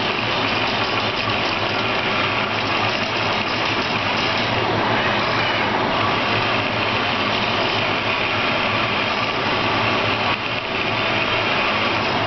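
Syringe-extrusion hydrogel 3D printer running: a steady mechanical whir from its motors as it moves the stage and dispenses hydrogel, dipping briefly near the end.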